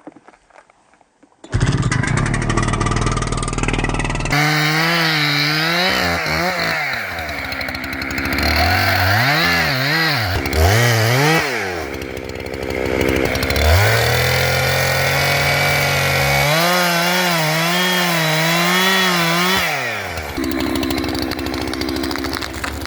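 Jonsered two-stroke chainsaw starting up about a second and a half in and idling, then revved again and again, its pitch swinging up and down, before settling back to idle near the end.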